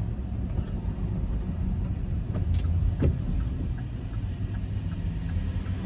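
Road and engine noise inside a moving vehicle's cabin: a steady low rumble, with a brief click about two and a half seconds in.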